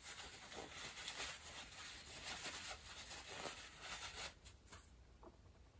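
Faint rustling and crumpling of a paper towel as hands are wiped clean of grease.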